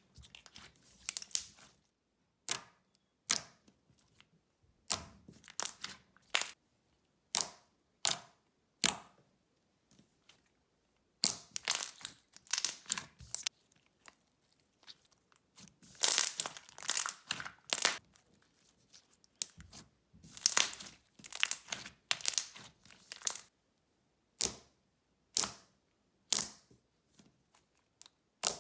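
Thick, glossy slime being squished and stretched by hand, giving irregular runs of sticky clicks and bubble pops with short silent gaps between them.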